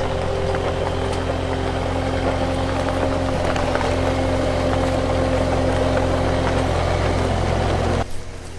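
A vehicle engine running steadily at idle, a low hum with a couple of held tones, cutting off suddenly about eight seconds in.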